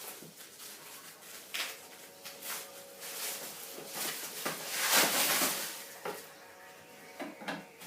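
Packaging being handled during an unboxing: rustling and scraping with scattered knocks and clunks, the busiest stretch about five seconds in.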